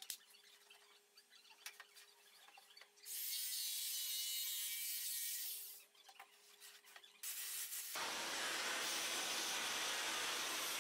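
Small clicks and knocks of tools being handled, then a loud hiss for about three seconds starting about three seconds in. About eight seconds in, a shop vacuum starts and runs steadily, its hose nozzle sucking sawdust out of a freshly jigsawed curved slot.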